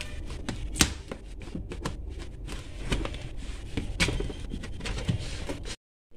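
Hands handling and rubbing over a cardboard parcel wrapped in packing tape: rustling and scraping with sharp taps, the loudest about a second in. The sound cuts off abruptly near the end.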